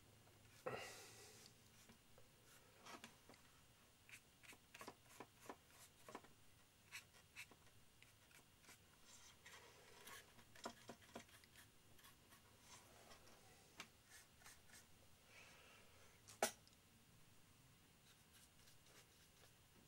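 Faint scratchy strokes and small taps of a paintbrush being worked over a model aircraft's wing piece and dabbed in a plastic paint palette, with one sharper click about sixteen seconds in.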